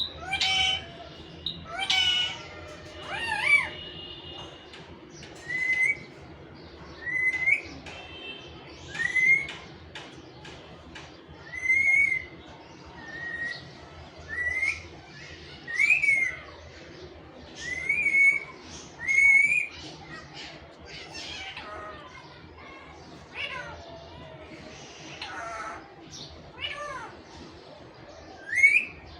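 A pet parrot making short, whistle-like calls that rise and then drop in pitch, about one every one and a half to two seconds, with a pause of a few seconds after the middle.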